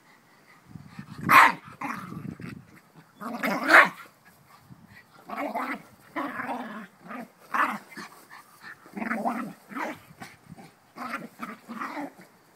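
Jack Russell terrier growling and barking in play while mauling a large ball: a dozen or so separate bursts, the loudest two about a second and a half and about four seconds in.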